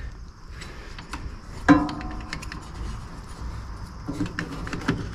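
Handling noise of electrical wiring being routed by hand: a scatter of light clicks and rustles from the cable and its plastic connectors.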